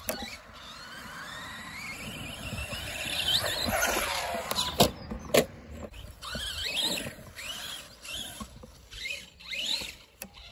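Arrma Big Rock RC monster truck's brushless motor whining, climbing steadily in pitch over the first few seconds as the truck accelerates, then a run of short rising and falling revs. Two sharp knocks come near the middle.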